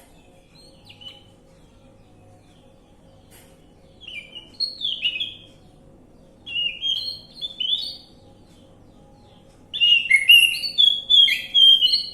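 Orange-headed thrush singing in three bursts of quick, varied whistled phrases, the last burst the longest and loudest, with a faint short call about a second in.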